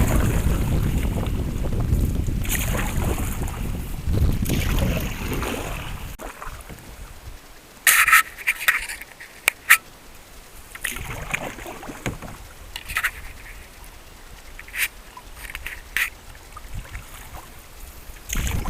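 Canoe paddling through slushy river ice. Wind buffets the microphone for the first several seconds, then comes a quieter stretch of paddle strokes with short, sharp knocks and splashes every second or few.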